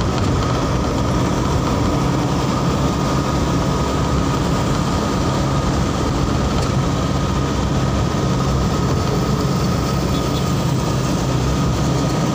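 Steady drone of a vehicle travelling along a busy highway: low engine hum mixed with road and wind noise, with a thin steady whine above it.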